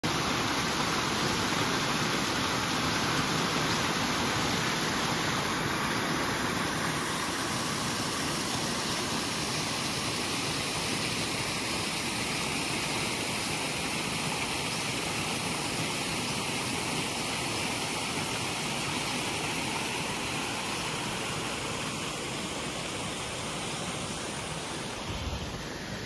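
Small waterfall cascading over rocks: a steady rush of falling water that slowly grows a little fainter toward the end.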